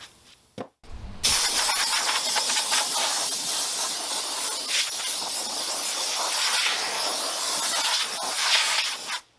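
Compressed air blasting from a hand-held air gun on a hose, aimed at a steel wheel rim: a loud, steady hiss that starts abruptly about a second in and cuts off near the end.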